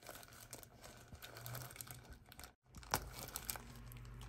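Faint crinkling and clicking of a disposable plastic glove as a hand lifts salted crab pieces out of brine in a plastic jar, with a sharper click about three seconds in.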